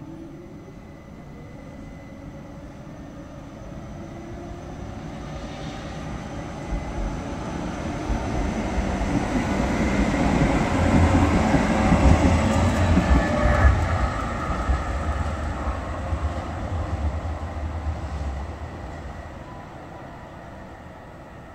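Oslo SL18 (CAF Urbos) articulated low-floor tram passing on street track: the rumble of wheels on rail builds as it approaches, is loudest about halfway through, then fades as it moves away.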